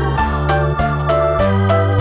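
Background music: keyboard instruments playing held chords and melody notes over a steady beat of about four strokes a second.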